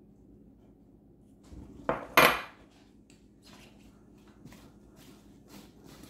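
Dishware clattering against a granite countertop about two seconds in, in two sharp knocks, the second louder, as a small glass bowl is set down. Fainter clicks and knocks follow as gloved hands shift apple slices in a glass baking dish.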